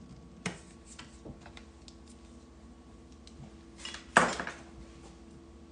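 Kitchenware knocking and clinking: a sharp knock about half a second in, a few light clicks, then a louder clatter about four seconds in, over a faint steady hum.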